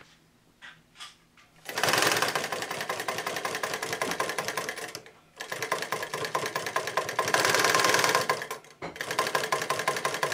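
Singer 31-15 industrial sewing machine, driven by a newly fitted servo motor, stitching in a rapid, even clatter. It starts about two seconds in and runs in three stretches with two brief stops.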